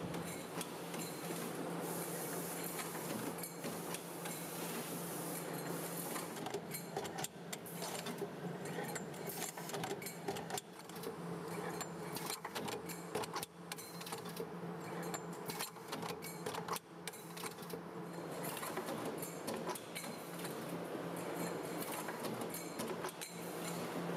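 Automatic pipe processing machine running: a steady hum from its drive with frequent irregular clicks and metallic clanks from the tooling as pipes are worked.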